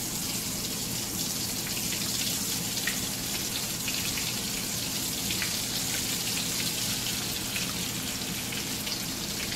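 Rolled tortilla taquitos frying in hot oil in a skillet: a steady sizzle with scattered small crackles and pops.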